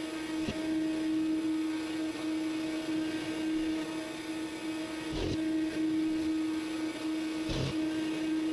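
CNC router spindle running steadily with a constant high hum while surfacing the spoil board, with a few short knocks.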